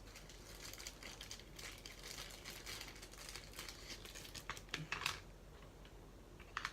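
Faint crinkling and rustling of plastic packaging being handled and squeezed into a storage container, with a few light clicks, the loudest about five seconds in.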